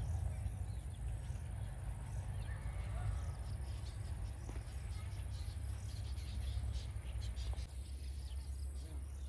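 Outdoor rural background: a steady low rumble with faint, scattered chirps.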